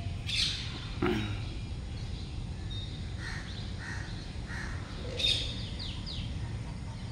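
Birds calling over a steady low background noise: a few short harsh calls about three to four seconds in, and a cluster of high, falling chirps about five seconds in.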